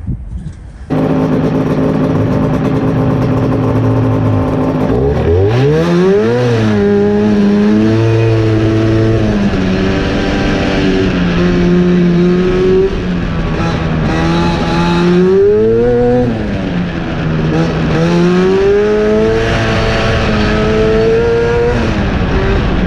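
Race car engine on an autocross run: after a steady stretch it climbs sharply in pitch about five seconds in, then holds and swings up and down, rising hard again around the middle and easing near the end.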